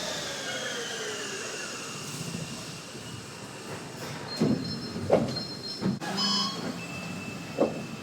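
Sapporo Subway train slowing down, sped up to double speed: its whine glides down in pitch and fades over the first few seconds. Then come several sharp knocks, short high electronic tones, and a steady high beep near the end.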